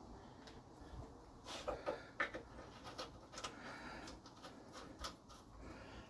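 A scatter of faint clicks and light knocks from tools and small parts being handled, clustered in the first half and again about five seconds in.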